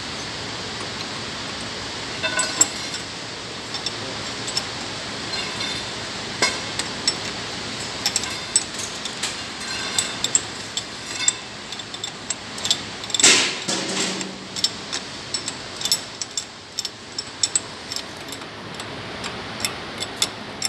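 Steel spanners clinking on each other and on a cab shock absorber's mounting bolt as its nut is tightened: scattered metallic clicks and clinks, the loudest a sharp knock about thirteen seconds in.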